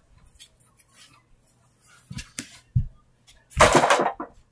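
A few soft thuds, then a brief scuffing rustle about three-quarters of the way in, as a person moves on hands and knees across a carpeted floor.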